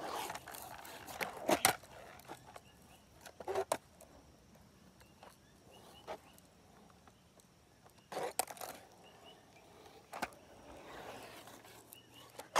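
RipStik caster board rolling on asphalt, its small urethane wheels running with a rough rolling noise, broken by several sharp clacks about two, four, eight and ten seconds in as the board and the rider's feet come down and pivot.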